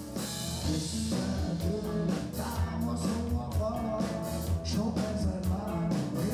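Live rock band playing, with drums, electric bass and guitar under a smoky-voiced male singer.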